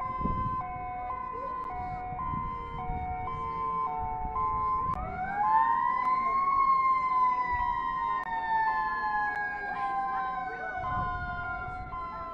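Tsunami warning sirens sounding. One siren alternates between a high and a low pitch about once a second. About five seconds in, a wailing siren swells up, then slowly winds down in pitch.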